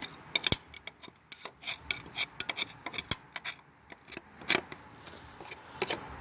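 Irregular small scrapes and light metallic clicks, many short strokes with no steady rhythm: nesting debris being scraped and picked out of a riding mower's engine compartment.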